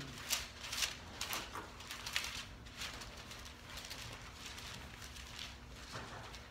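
Thin Bible pages being leafed through by hand: a string of soft, irregular paper rustles and flicks as the pages turn.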